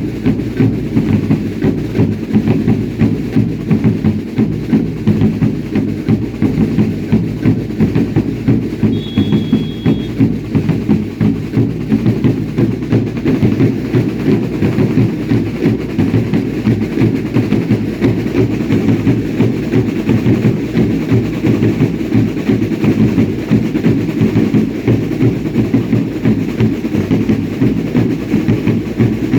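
Drums beating a steady, even dance rhythm, about three beats a second, for a traditional Andean 'baile indio' dance.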